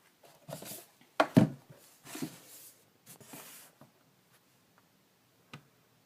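Plastic LEGO model being handled: a pair of sharp clicks or knocks a little over a second in, with short scraping, rustling spells between and one more click near the end.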